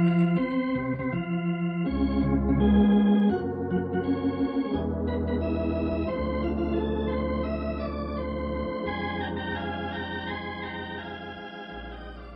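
Organ music bridge between scenes of a radio drama: held chords over a low bass note, changing every second or so, then fading down near the end.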